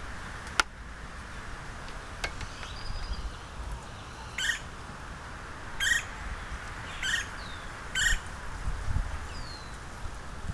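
Woodpecker at a cavity in a pine trunk giving four short calls about a second apart in the second half. A sharp tap sounds about half a second in, and a fainter one near two seconds.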